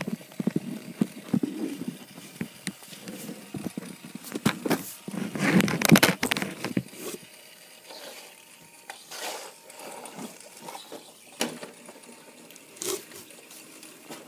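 Handling noise: irregular clicks, knocks and rustles from plastic toys and the phone being moved around a dollhouse. A denser, louder stretch of rustling and knocking comes about five to seven seconds in.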